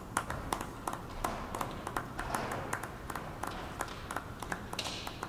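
Two people clapping their hands, an uneven run of sharp claps about two or three a second.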